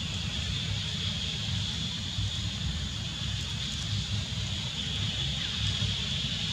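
Outdoor ambience: a low, uneven wind rumble on the microphone under a steady high-pitched drone.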